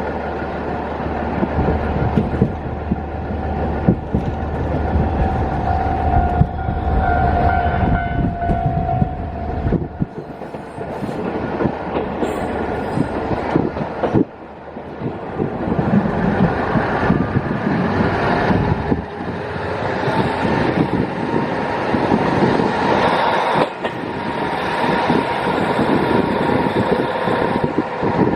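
JR East KiHa 48 diesel railcar running, heard from inside with the window open: a low diesel engine drone that drops away about ten seconds in, under wheel clatter over the rail joints and wind rushing in through the open window.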